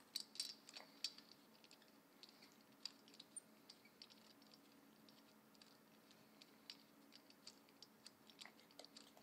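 Faint metallic clicks and ticks of a spark plug socket being fitted over a spark plug and turned to unscrew it from a small motorcycle engine, a quick cluster in the first second, then scattered single ticks, over a faint steady hum.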